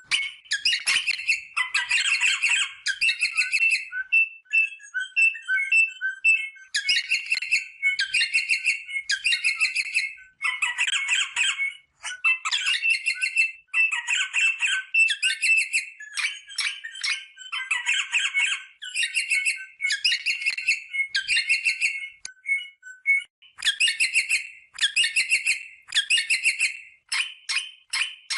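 Rosella parrot calling: repeated harsh chattering squawks, each a quick run of notes lasting about half a second, coming one after another with a few short single notes in between.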